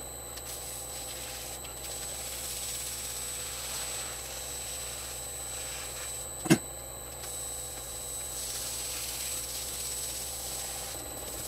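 Laguna Revo 18|36 wood lathe running steadily with a constant high whine, while a polishing cloth rubs against the spinning pine box and hisses, swelling and easing twice. A single sharp click about six and a half seconds in.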